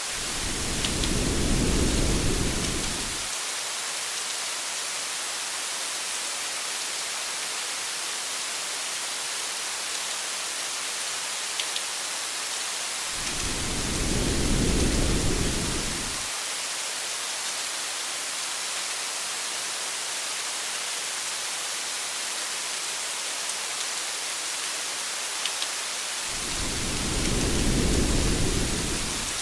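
Steady rain hissing on a car, with low rumbles of thunder three times, about thirteen seconds apart, each lasting about three seconds.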